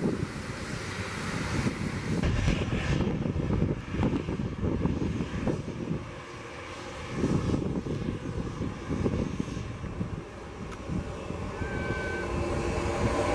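Jet airliner engines running at taxi power as the aircraft roll past, a steady low noise that dips briefly about six seconds in.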